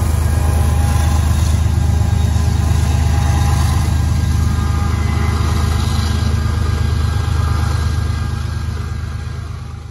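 A large engine running with a deep, steady rumble that fades away over the last two seconds.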